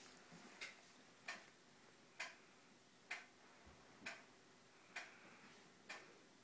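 Faint, even ticking, a little under one tick a second: seven sharp ticks.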